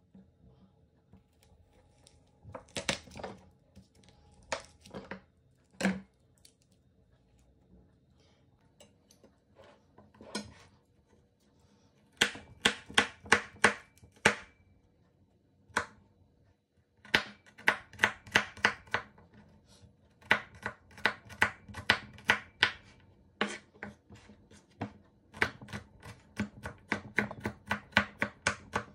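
Kitchen knife cutting garlic cloves on a wooden cutting board. It begins with a few separate knocks, then moves to quick runs of chopping strokes, several a second, in bursts with short pauses as the garlic is minced.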